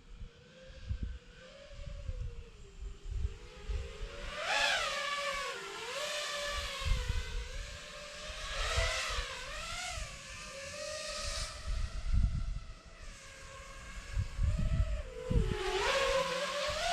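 Nazgul Evoque F6D FPV quadcopter's motors and propellers whining, the pitch rising and falling with throttle, with louder surges about four and a half, nine and sixteen seconds in. A low, uneven rumble runs underneath.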